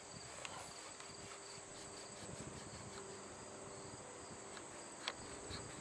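Insects chirring steadily and faintly in the background, with a few faint clicks from the rifle muzzle as a lubed linen patch is worked and trimmed over the round ball.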